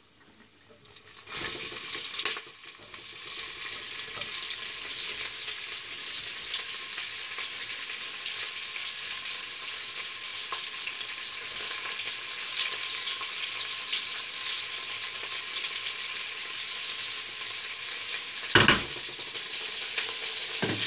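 Sliced onions hitting hot oil and whole spices in a pressure cooker and frying, the sizzle starting about a second in and running on steadily. A sharp knock comes soon after it starts and another near the end.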